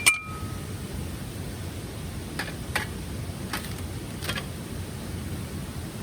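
A single sharp metallic clink with a brief ringing tone at the start, then four softer light clicks a little later, over a steady rushing noise.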